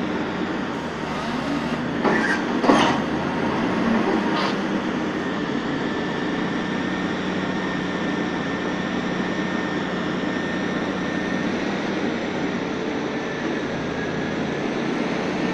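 Diesel-hydraulic MAIT rotary piling rig running steadily while its boring auger turns to spin off the soil it has brought up from the pile hole. A few sharp knocks come about two to four seconds in.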